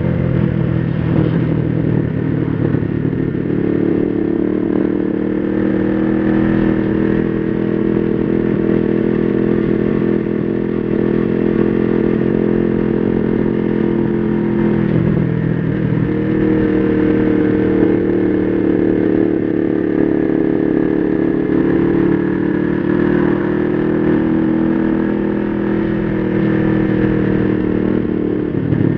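Motorcycle engine running steadily under way, with wind noise on the microphone. The engine note breaks and settles at a new pitch about halfway through, like a gear change.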